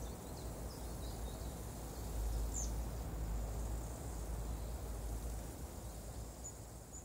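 Outdoor woodland ambience: a low rumble with faint hiss, and short high bird chirps a couple of seconds in and a few more near the end.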